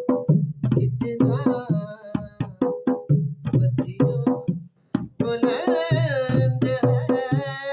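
A man singing a devotional Urdu verse in praise of Hussain, drawing out long, wavering notes, over a quick drum beat of about four strokes a second.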